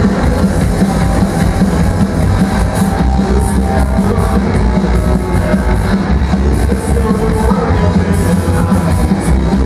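Rock band playing live and loud: electric guitar over a drum kit with frequent cymbal hits, continuing without a break.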